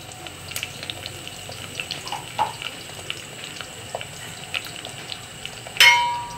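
Sliced onions sizzling in hot tempering oil with mustard seeds and curry leaves in an aluminium pan, with a steady hiss and scattered small crackles. Near the end a sharp metallic clink rings out briefly.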